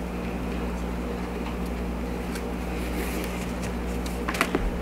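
Steady low hum in the room, with faint rustling and light clicks of paracord being wrapped around a metal key ring by hand. A few sharper clicks come near the end.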